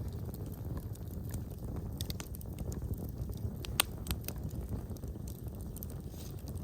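Wood fire burning in a fireplace: a steady low rumble of flames with scattered crackles and pops, one sharp loud pop a little under four seconds in.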